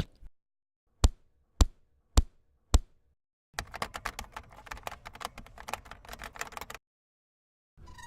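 Four sharp knocks about half a second apart, then about three seconds of rapid, irregular clicking like typing on a keyboard.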